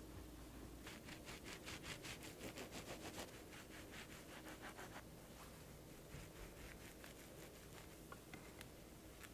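Quiet rasping of a knife sawing back and forth through the crust of a brioche sandwich, about five quick strokes a second for some four seconds. The strokes then slow, and a few light clicks come near the end.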